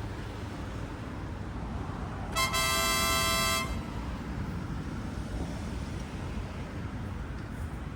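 A vehicle horn sounds once, a steady honk of a little over a second, over a constant low rumble of vehicle and road noise.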